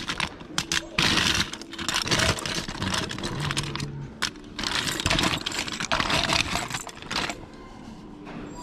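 Small plastic toys and loose parts clattering and rattling as a hand rummages through a pile of them: a busy run of quick clicks and scrapes that goes quieter about seven seconds in.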